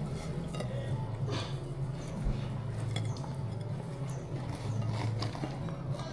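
Cutlery and dishes clinking in scattered light taps at a table, over a steady low hum.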